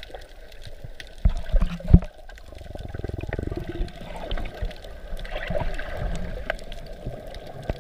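Underwater sound heard through a camera held below the surface: muffled water movement with a few dull thumps between one and two seconds in, then a stretch of bubbling, over scattered faint clicks.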